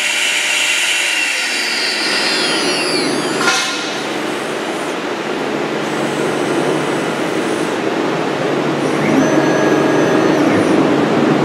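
CNC router spindle running and cutting into a sheet, a steady high whine over a dense cutting noise. About three and a half seconds in there is a sharp click, after which the whine fades and the cutting noise carries on.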